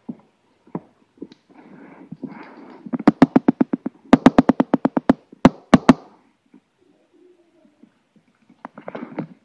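Rapid run of sharp taps or knocks, about ten a second, in two bursts a few seconds in, with rustling before them and a few more taps and rustling near the end.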